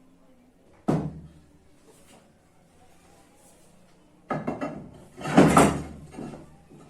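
A sharp knock about a second in, then a quick clatter of clicks and a short scraping slide, as of hard parts being set down and pushed together by hand.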